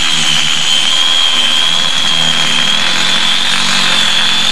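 A miniature live-steam locomotive letting off steam: a loud, shrill hiss with one steady high tone through it that wavers slightly.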